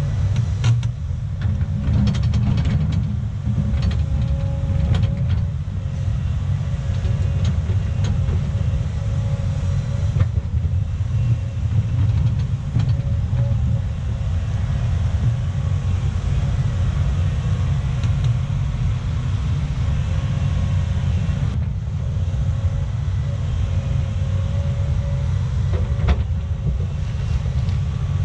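Diesel engine of a heavy earthmoving machine running steadily under load, a deep continuous rumble with a faint steady whine above it. A scattering of short knocks comes through, several in the first few seconds and another near the end.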